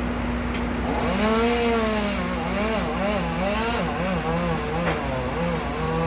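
Chainsaw running and cutting through a large tree limb, its engine note rising and dipping over and over as it takes load, over a steady hum.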